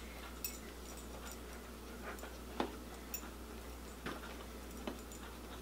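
Faint, irregular clicks and ticks of hands working at a toy's cardboard-and-plastic box, about seven sharp clicks with the loudest near the middle.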